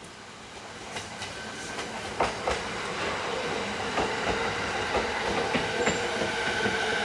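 Electric commuter train, a JR East 209-series, pulling into the station and growing steadily louder. Its wheels click irregularly over the rail joints, and a steady high whine builds in the last couple of seconds.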